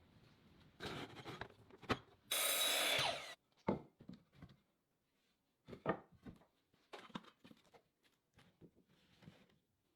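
Wood being worked by hand: two short noisy bursts about a second and two and a half seconds in, then scattered knocks and rubbing of wood.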